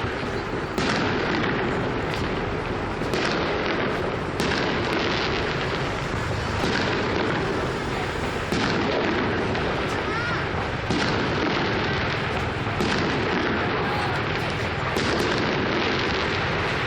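Fireworks display going off without pause: a dense, continuous crackle and rumble of many bursting shells, with a sharper bang every second or two.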